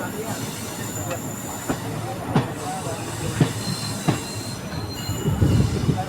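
Train wheels squealing on the rails while a train rolls slowly into a station, with sharp clacks every second or so as the wheels cross rail joints and points.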